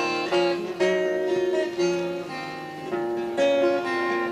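Acoustic guitar music: picked notes change over a low note held steady.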